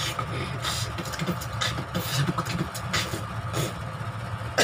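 Beatboxing: a continuous low buzzing vocal bass under sharp mouth-made snare and hi-hat clicks about every half second to a second.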